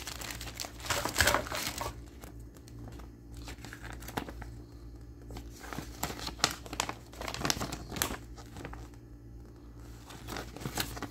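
Clear plastic bag crinkling in the hands, then a folded paper leaflet rustling as it is opened out: irregular crackles throughout.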